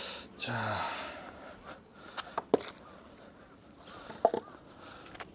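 A breath out, then a brief rustle and quiet handling noise, with a few light clicks about two seconds in and another near four seconds. The chainsaw is not running.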